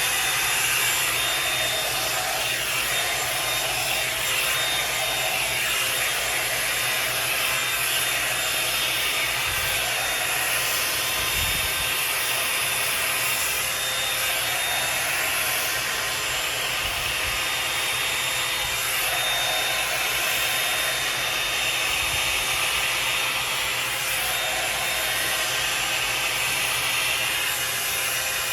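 Revlon One-Step hair dryer brush running on its high setting: a steady blowing rush with a thin high whine, wavering slightly as the brush is worked through hair.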